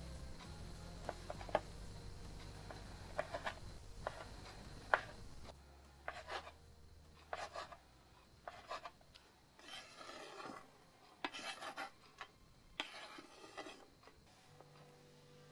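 A knife cutting hard cheese on a wooden cutting board: scattered sharp knocks of the blade on the board, then quicker chopping strokes as the cheese is diced. Near the end come a few rasping scrapes of the blade across the board.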